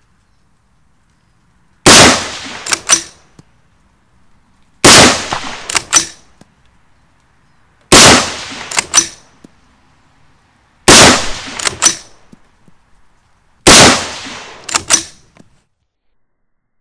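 Five shots from a Southern Gun Co Speedmaster straight-pull rifle in .223, about three seconds apart. Each shot is followed about a second later by two quick sharp clicks as the straight-pull action is pulled back and released to chamber the next round.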